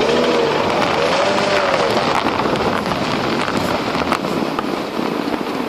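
Mercedes-Benz W211's M112 V6 engine running with a knock (стук), the fault the recording is made to show. A tone rises and falls twice in the first two seconds, and a few sharp clicks sound later.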